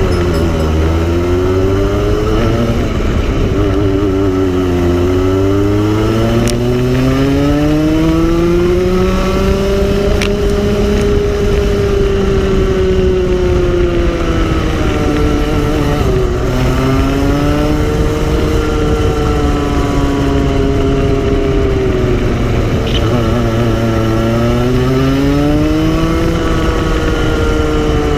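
Go-kart engine heard from on board, its pitch climbing as the kart accelerates and dropping as it slows for corners. The longest climb peaks about ten seconds in; the revs fall sharply about sixteen seconds in and again near the end.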